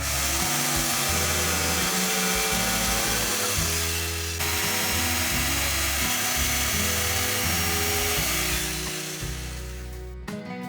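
A power tool working wood, a steady noisy whir that breaks off briefly about four seconds in and fades out near the end, over background music with a steady bass line.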